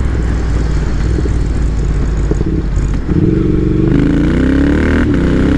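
A motor vehicle engine accelerating, its pitch rising steadily from about three seconds in, over a constant low traffic rumble.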